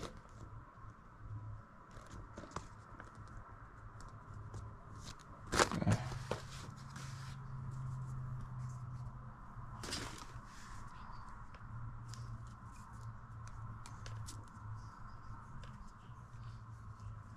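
Handling noises from a smartphone gimbal being tried out: small clicks and taps throughout, a louder scrape or rustle about six seconds in and another about ten seconds in, over a faint steady hum.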